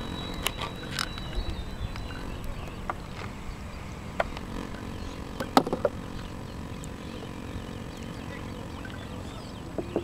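Steady low rumble of outdoor background noise with scattered short, sharp clicks; the loudest is a quick cluster of clicks about five and a half seconds in.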